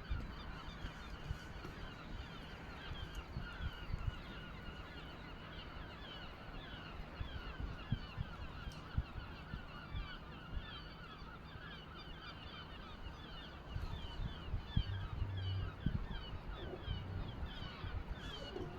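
A large flock of birds calling without pause, many short, falling, goose-like calls overlapping into a constant chatter, over a low rumble.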